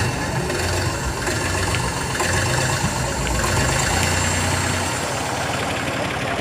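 Deutz D 4506 S tractor's air-cooled three-cylinder F3L912 diesel running steadily; its low note thins out about five seconds in.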